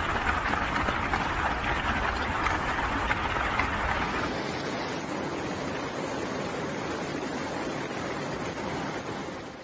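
Floodwater rushing fast through a street, a steady noise of moving water; about four seconds in it changes suddenly to a quieter, duller rush.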